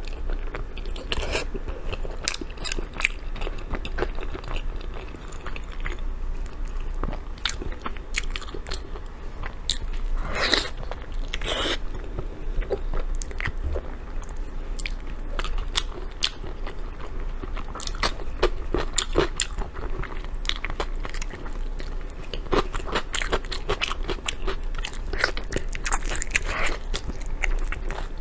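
Close-miked eating of soft braised pork: irregular biting and chewing with many small wet clicks and crackles, continuing throughout.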